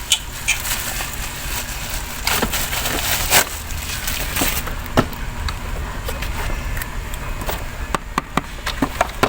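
Parcel packaging being torn open by hand, crackling and crinkling with scattered sharp snaps and clicks.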